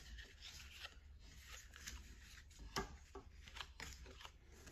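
Faint rustles and light clicks of Pokémon trading cards being handled and slid against each other, with a few sharper clicks scattered through.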